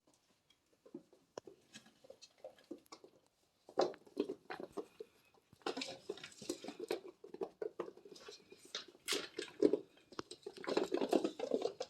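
Kittens play-fighting: irregular scuffling, pattering paws and small knocks in uneven bursts, busiest in the second half.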